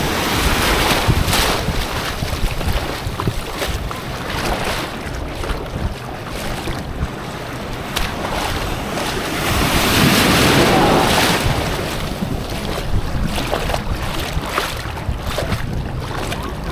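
Sea waves washing and splashing close by, with wind buffeting the microphone; the water swells louder about ten seconds in.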